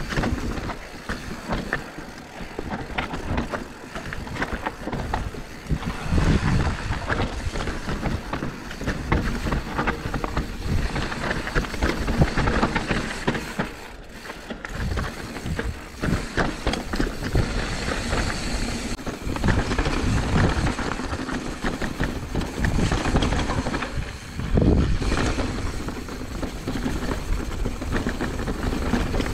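Mountain bike riding fast down rocky singletrack, heard from a camera on the handlebars: tyres rumbling over stones and roots, with constant irregular rattling and knocking of the bike over the bumps.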